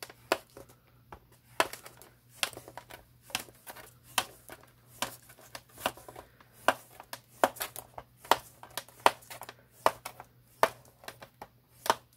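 Bone folder scoring a strip of paper along the grooves of a plastic scoring board, one short sharp stroke after another, roughly one to two a second, as each half-inch score line is pressed in.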